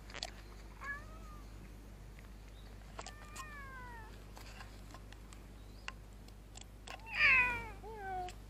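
Grey-and-white cat meowing four times: a short meow, a longer meow falling in pitch, then near the end its loudest, drawn-out meow followed by a short one.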